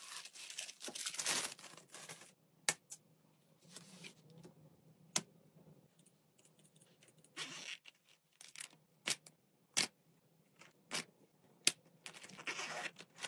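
Faint handling sounds: plastic packaging rustling and crinkling as a laptop sleeve is unwrapped, then scattered small clicks and taps as items are handled and set down on a desk, with more rustling near the end.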